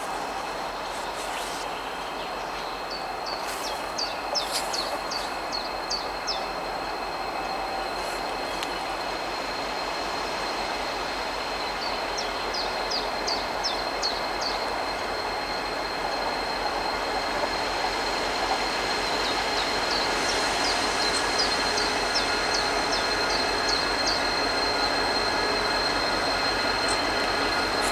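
M62M diesel locomotive running light, approaching with its steady running sound growing slowly louder. Runs of short, high bird chirps sound over it several times.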